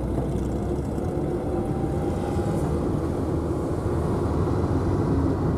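Steady low rumble of a car heard from inside its cabin: engine and road noise.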